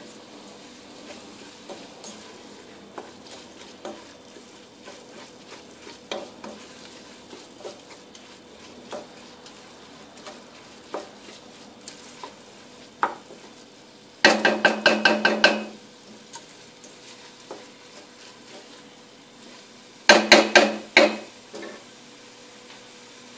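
Chopped onions, garlic and spices frying gently in oil in a stainless steel pot while a spoon stirs, with scattered small taps and scrapes against the pot. Twice, around the middle and near the end, there is a louder spell of rapid rattling, each about a second long.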